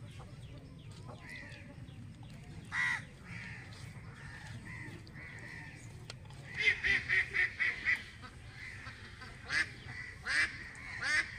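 Birds calling: one call about three seconds in, a quick run of about six calls around seven seconds in, then three more near the end.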